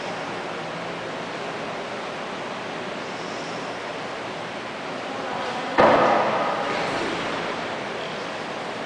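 A single sharp karate kiai shout about six seconds in, echoing and dying away over about a second in a large hall, over steady background hiss.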